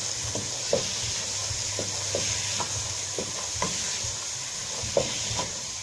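Wooden spoon stirring green peas and tomatoes in a stainless steel pot, knocking and scraping against the pot in short irregular strokes about every half second, over a steady sizzle of the vegetables frying.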